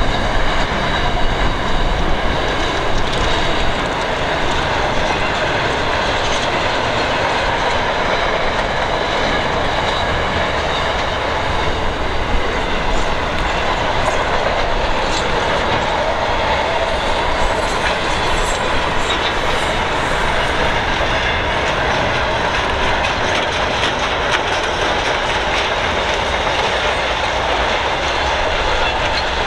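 Intermodal container freight train's wagons rolling along the track, wheels on rail making a steady, unbroken running noise.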